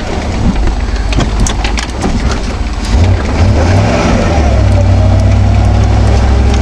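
Chevy Blazer's engine driving in four-wheel drive through snow, with scattered knocks and rattles in the first few seconds; about three seconds in the engine revs up and then holds a steady, louder drone.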